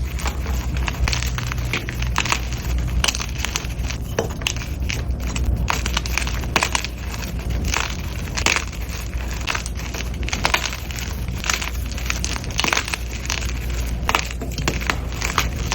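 Blocks of gym chalk being crushed, a dense run of irregular crunches and crisp crackles, over a steady low rumble.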